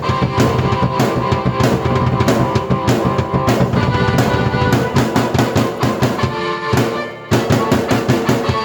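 Drum kit and keyboard played together: a busy drum beat with bass drum and snare under sustained keyboard chords. Shortly before the end the music briefly thins out, then a quick drum fill comes in.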